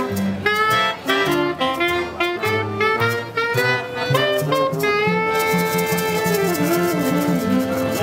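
Small acoustic street band playing a lively jazz-style tune: a soprano saxophone carries the melody over upright double bass, accordion and trombone, with maracas shaking the beat. About five seconds in the saxophone holds a long note while the shaker rhythm runs on steadily.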